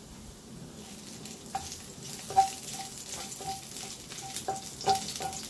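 Garlic frying in olive oil in a pot, sizzling, while a metal utensil stirs it and clinks against the pan again and again. The sizzle builds about a second in.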